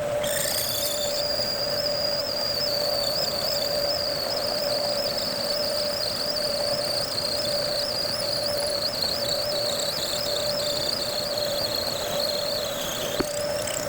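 Metal lathe running while a letter T twist drill fed from the tailstock bores into brass stock: a steady machine hum with a high, wavering whine from the cutting.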